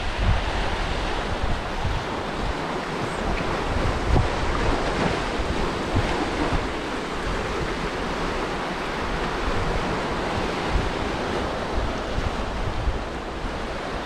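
Sea surf washing and breaking over rocks at the shoreline, with wind gusting on the microphone.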